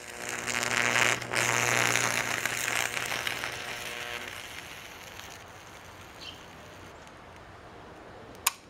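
Microwave oven transformer's high-voltage arc burning through a small battery alarm clock: a sharp snap as it strikes, then a loud sizzling crackle over a steady mains hum for about four seconds. When the arc stops, a fainter hiss of the clock's plastic still burning in flame remains, with a sharp click near the end.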